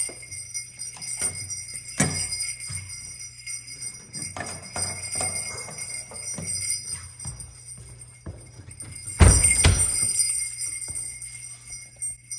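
Brass sleigh bells on a leather belt hung on a door jingle and ring as the door is worked, with knocks at intervals. About nine seconds in a heavy thump brings the loudest burst of jingling.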